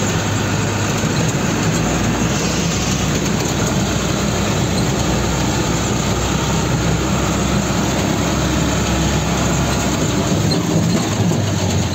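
Six-tyre water tanker truck driving slowly, heard from inside the cab: a steady engine note with dense road and cab noise over it.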